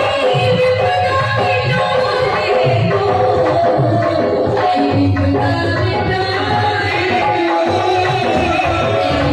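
Live bhajan music: Hindu devotional song accompaniment with tabla drumming under a sustained melody.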